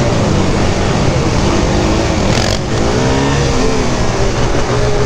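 Sport quad's engine running under throttle while riding, its revs rising and falling, with wind noise on the mounted camera. About halfway through the engine briefly drops off, then the revs climb again.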